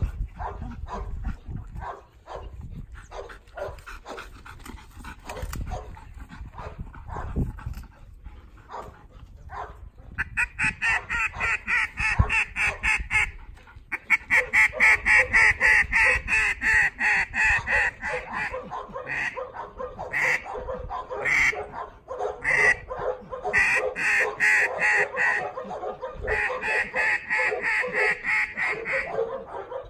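A dog barking in fast runs of repeated barks, about four a second, starting about ten seconds in and going on with short pauses until near the end.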